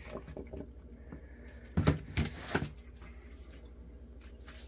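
A few brief knocks and scrapes from handling food and containers, clustered about two seconds in, over a faint steady hum.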